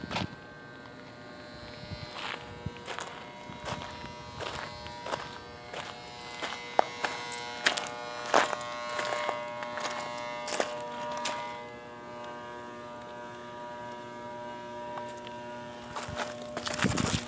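Steady electrical buzz from the equipment of a fenced radio antenna site, several steady tones sounding at once, with scattered short clicks over it.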